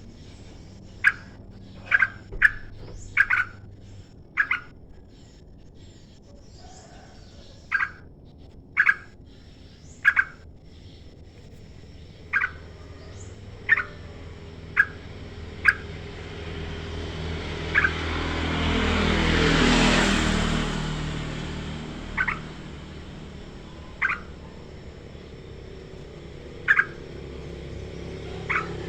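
Yellow-vented bulbul (trucukan) giving short, sharp calls, singly or in quick pairs, every second or two with gaps between. A passing vehicle swells and fades behind it, loudest about twenty seconds in.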